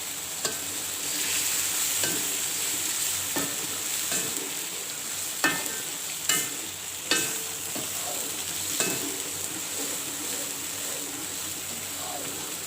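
A metal utensil stirring vegetables cooking in a pot. It knocks against the pot several times with short ringing clinks, over a steady cooking hiss.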